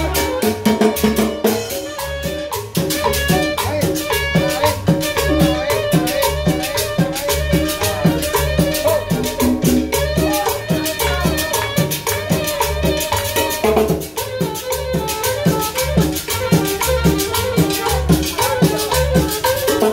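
Live band playing dance music: a saxophone carries the melody over congas and a steady rattling hand-percussion rhythm.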